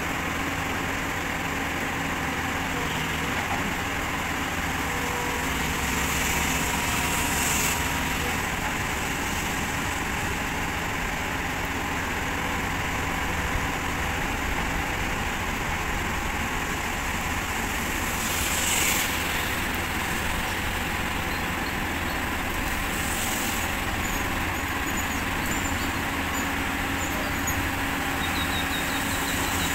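Tata Hitachi 200 excavator's diesel engine running steadily under load as the machine hauls itself up onto a low-bed trailer with no ramp. A few brief hissing swells rise over it.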